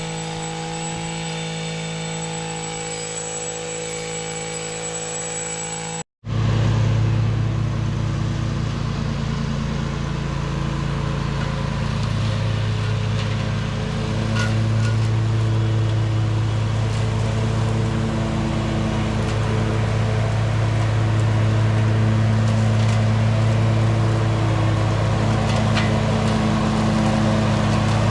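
Engine-powered yard machinery running steadily. About six seconds in the sound cuts off abruptly and a different, lower-pitched engine takes over, running steadily.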